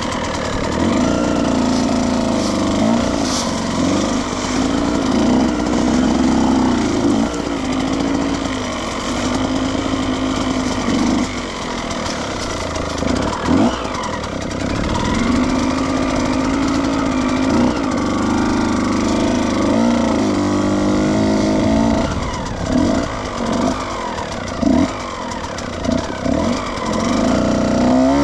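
2014 Husqvarna TE125 two-stroke dirt bike engine ridden slowly over rocky technical ground, its revs rising and falling over and over as the throttle is opened and closed.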